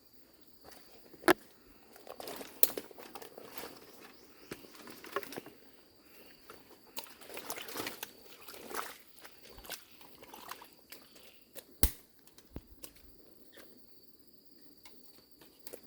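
Footsteps and scattered knocks and rustles of someone walking over wet ground, with two sharper clicks, one about a second in and one near the end. A faint steady high-pitched tone runs behind them.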